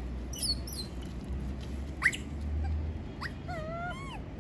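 Young macaque giving high, quavering whimper calls: a short rising squeak about two seconds in, then another squeak and a run of wavering calls near the end.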